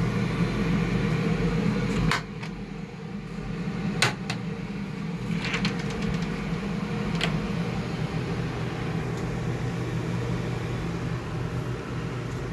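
Steady hum of indoor grow-room fans and equipment, dropping somewhat in level about two seconds in, with a few sharp clicks and knocks scattered through it.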